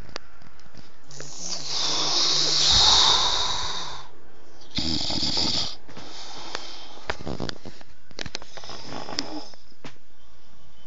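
Snoring in slow separate breaths: a long loud snore about a second in, a shorter one near the middle, and fainter snoring breaths after.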